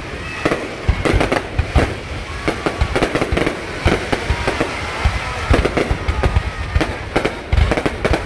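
Fireworks display going off: a dense, irregular string of bangs and crackling, several each second, with voices of onlookers beneath.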